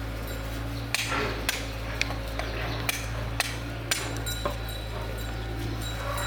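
A series of about seven sharp knocks, roughly half a second apart, over a steady low hum.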